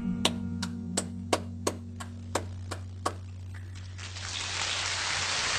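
Hand claps, about ten of them at roughly three a second, over a held low note from the end of a song playing in the background. From about four seconds in, applause swells up in the song's live recording.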